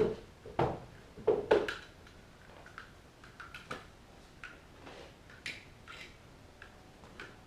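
A few sharp knocks in the first two seconds, then scattered light clicks and ticks of hand work on the car; no engine running.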